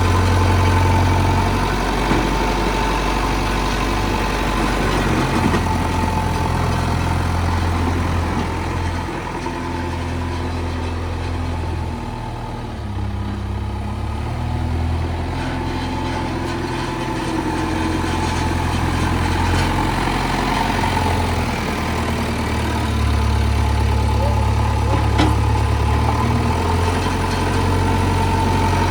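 Diesel engine of heavy machinery running steadily, easing off a little in the middle and picking up again near the end.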